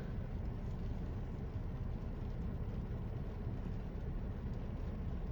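Steady low rumble of a parked car's engine idling, heard from inside the cabin.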